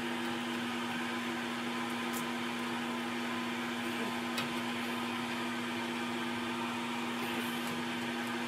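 Steady machine hum with a low droning tone, unchanging throughout, with a couple of faint clicks.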